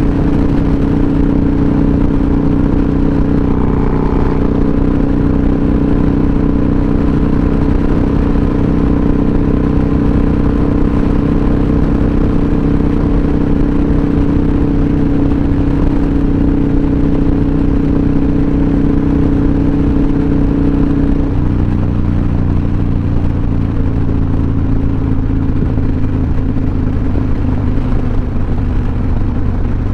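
Harley-Davidson V-twin motorcycle engine running steadily while under way. Its note steps down about two-thirds of the way through as the bike slows.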